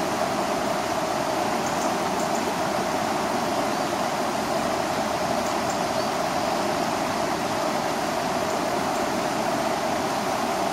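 River water rushing over a low weir, a steady, unbroken rushing noise.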